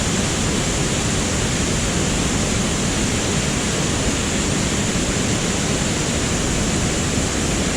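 Waterfall roaring as a loud, steady rush of falling water.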